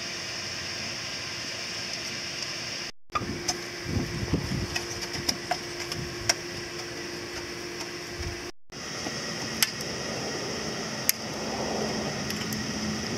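Steady background hiss with scattered sharp clicks and taps of hand work on a concrete-tile roof among aluminium racking rails, and a faint low hum in the second half.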